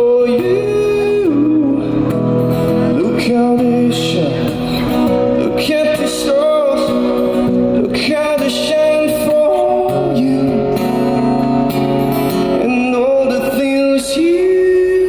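A young man singing with long held notes while strumming an acoustic guitar.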